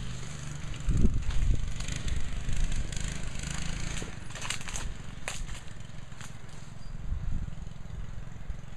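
Murray go-kart's engine running at a distance as the kart drives, under a low rumble on the microphone, with a few short sharp ticks about four to five seconds in.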